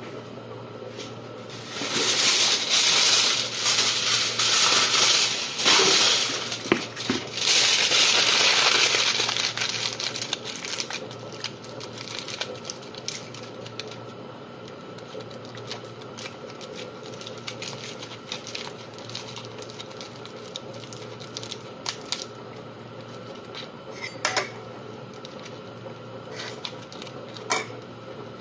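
Aluminium foil crinkling and crumpling in the hands, loud for several seconds, then softer rustling with a couple of light clicks near the end.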